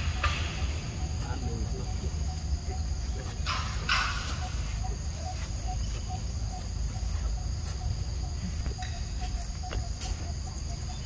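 Insects droning steadily, with a small chirp repeated a few times a second, and a brief scratchy noise about four seconds in.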